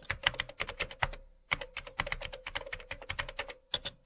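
Typing on a computer keyboard: quick runs of keystroke clicks, with a short pause about a second in and another near the end.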